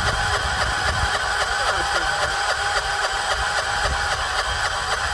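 John Deere 212 garden tractor's starter cranking its single-cylinder Kohler engine over steadily without it catching. The engine is very cold, has sat for months and won't fire, which the owner puts down to fuel not yet pumped to the carburettor.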